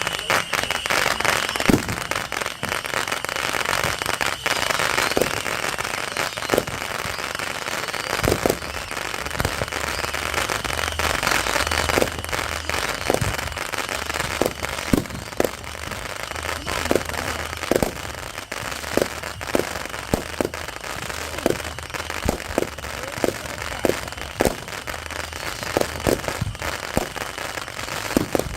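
Backyard fireworks going off: a continuous crackling with many sharp bangs, which come quicker and closer together in the second half.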